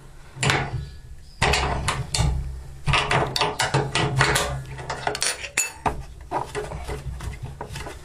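Open-end wrench loosening the lock nut on a washing machine's adjustable foot: a run of irregular metallic clicks and clinks as the wrench is worked and repositioned on the nut.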